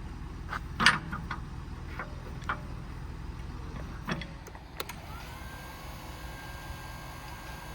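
A few sharp clicks and clunks, then about five seconds in an electric motor spins up with a short rising whine and settles into a steady whine, over a low steady rumble. This is the electric-over-hydraulic crane's pump motor running as the crane is worked.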